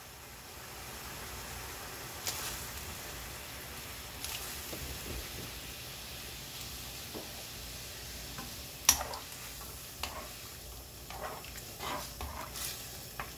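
Water bubbling at a rolling boil in a frying pan as pieces of cut squid are added to blanch, with a few sharp clicks and knocks, the loudest about nine seconds in. Near the end a spoon stirs the squid in the bubbling water.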